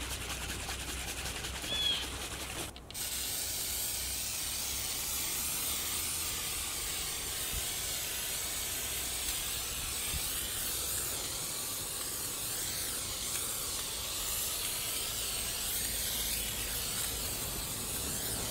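Aerosol can of Citristrip paint stripper spraying in one long, steady hiss, starting about three seconds in.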